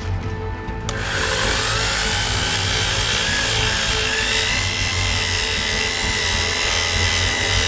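Electric orbital sander with 240-grit paper sanding the wooden stock of a shotgun. The sanding noise sets in suddenly about a second in, then runs steadily over the motor's faint whine.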